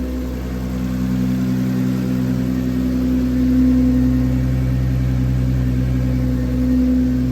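Audi B5 S4's 2.7-litre V6, converted to a single turbo, idling steadily after a startup, with a slight swell in level about three and a half seconds in.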